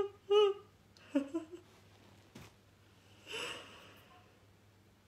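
A woman's wordless vocal sounds: short whimpering cries that stop about half a second in, a low falling groan near one second, then a breathy exhale a little past three seconds.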